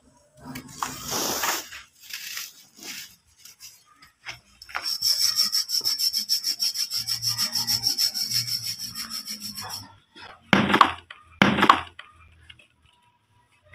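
Dry, dusty brick-dirt balls crushed and rubbed by hand: a crunchy crumble early, then two balls ground against each other in a rapid, even rasping scrape for about five seconds. Near the end come two loud crunches as a ball cracks apart.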